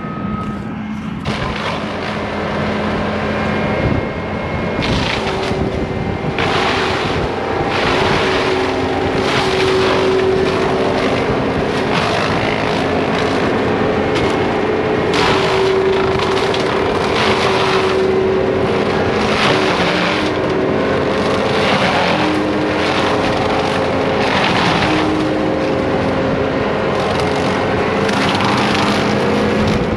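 Excavator-mounted forestry mulcher spinning and chewing through trees, driven by a hydraulic power pack, with a steady engine tone that shifts in pitch under load and repeated bursts of grinding and chipping every second or two as the teeth bite into the wood.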